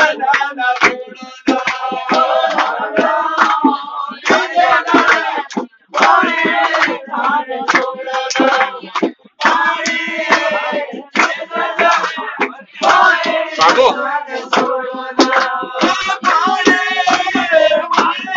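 Men singing a Pahari folk dance song with hand clapping, with a couple of brief breaks between lines.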